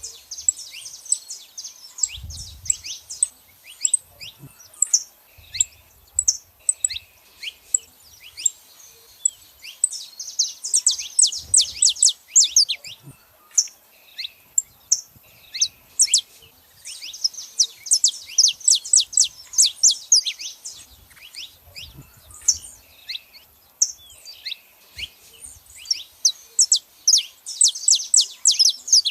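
Saffron finches calling and singing: quick, sharp, high chirps that come thick and fast in several dense bursts, with sparser chirps between.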